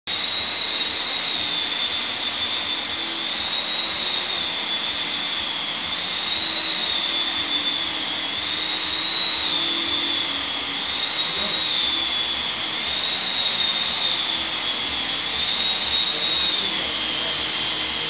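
A Dyson upright vacuum cleaner running on carpet: a steady motor noise with a high whine that wavers slowly up and down in pitch.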